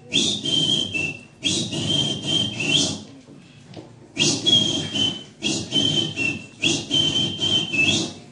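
Shrill whistling blown into a microphone: five long blasts of about a second each, with heavy breath noise. The pitch drops slightly at the end of each blast.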